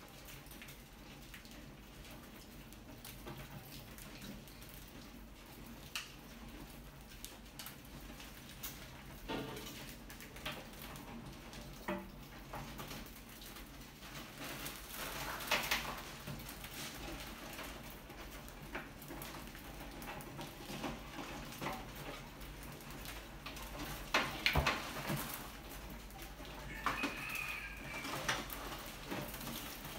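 Rats scrabbling and scampering over a wire-mesh lid and glass tank: scattered clicks, scratches and taps of claws on the mesh and glass, thickening into brief flurries. A short high squeak near the end.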